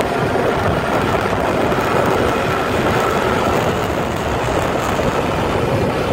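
Suzuki Gixxer SF motorcycle ridden at speed, close to 90 km/h: its single-cylinder engine running hard under a steady rush of wind and road noise.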